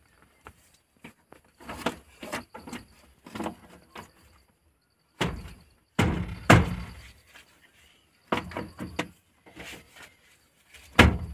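Irregular dull thumps and knocks as a new door trim panel is pushed and struck against a Maruti 800's front door so its push clips snap into the door holes. The knocks are light at first; the loudest come in a cluster about halfway through.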